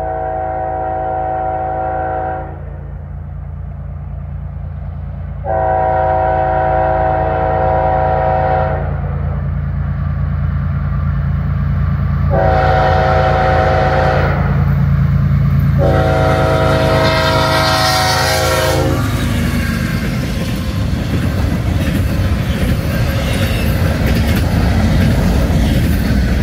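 Nathan Airchime K5HLB five-chime horn on a freight locomotive sounding the grade-crossing signal, long, long, short, long, over the steady low running of the diesel engine. As the last long blast ends, the train passes close and the sound becomes a loud rush of locomotive and wheel noise.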